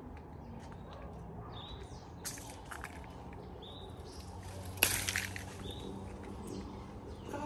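A bird repeating a short, high chirp about every two seconds over faint outdoor rumble. About five seconds in comes a sharp rustle and snap of leaves and stem as an orange is pulled from the tree.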